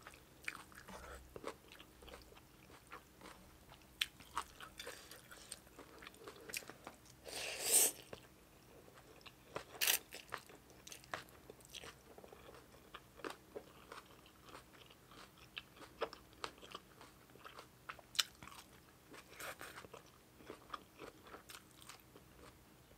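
A person chewing and crunching mouthfuls of spicy papaya salad with fermented fish, close to the microphone, with many small wet clicks and smacks. A louder, longer crunchy burst comes about seven and a half seconds in, and a sharp loud one near ten seconds.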